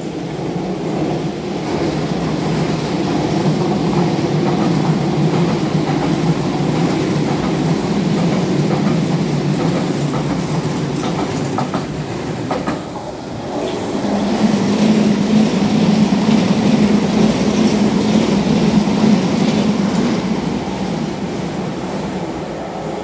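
London Underground train running past on the surface tracks, a loud steady rumble of wheels on rail. It eases briefly about thirteen seconds in, then swells again with a steady hum for several seconds and fades near the end.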